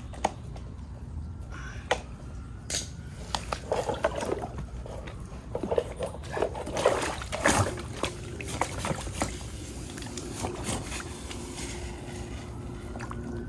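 Water sloshing and trickling in a muddy pit as a small submersible sump pump and its hose are handled and set into it, with irregular clicks and knocks from the handling.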